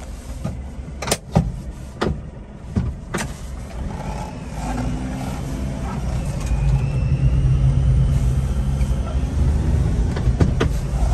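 Cab interior of a 1988 Mitsubishi Minicab supercharged kei truck: a few sharp knocks and clunks in the first seconds, then the engine pulls the truck away and runs louder and steadier through the second half as it drives.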